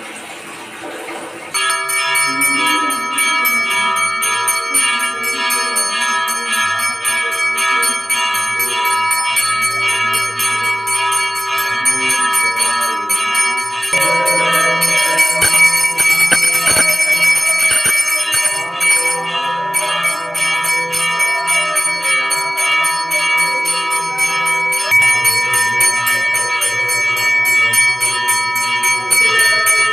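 Temple bells ringing rapidly and continuously for the lamp offering, starting about a second and a half in.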